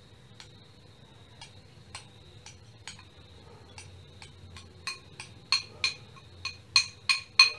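A spoon tapping against a glass bowl to knock milk powder out of it, a series of ringing glassy clinks. They are faint and sparse at first, then louder and quicker in the second half, about three a second near the end.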